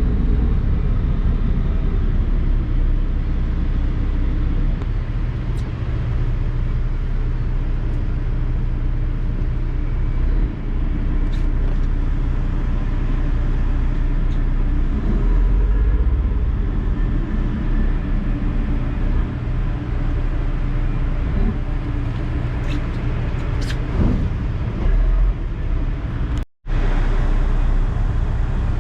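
Steady low drone of a passenger ferry under way, its engines running with a rush of wind and water over it. The sound cuts out for a split second near the end.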